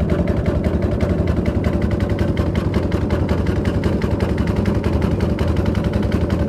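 Small fishing boat's engine running steadily, with a fast, even pulse.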